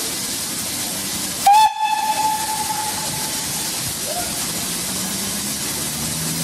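Steady hiss of steam from BR Standard Class 4 2-6-4 tank locomotive No. 80080 standing in steam, broken about a second and a half in by one short, loud steam whistle blast that dies away within about a second and a half. A low steady hum comes in near the end.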